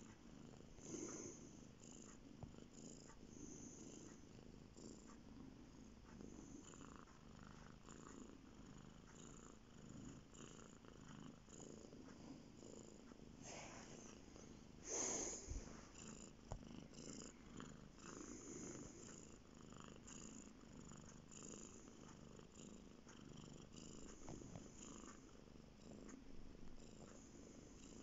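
Cat purring softly and steadily, with one brief louder noise about halfway through.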